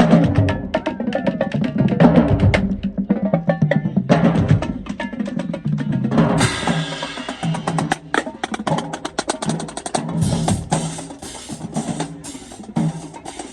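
Marching band playing as it marches: a drumline of rapid snare strokes and bass drum hits over low brass notes, with a bright crash about halfway through.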